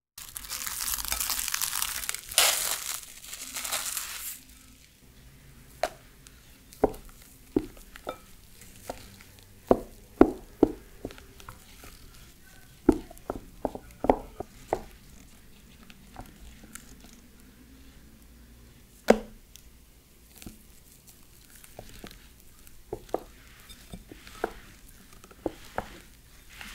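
Plastic cling film crinkling as it is pulled and stretched over a glass bowl for about the first four seconds. Then a silicone spatula folds batter in a glass bowl, with scattered knocks and scrapes against the glass.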